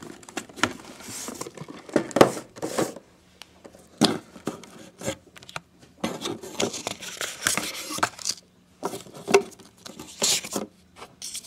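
Paper documents and a cardboard box being handled: irregular rustling, sliding and sharp little taps of paper and card.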